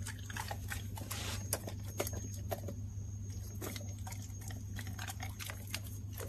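Dog sniffing and nosing around the floor: short sniffs and a scatter of small irregular clicks and smacks, over a low steady hum.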